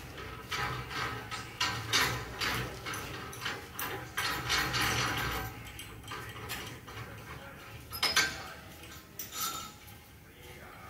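Irregular light clicks and clattering, dense for the first five seconds and then a few scattered knocks, over a faint low hum.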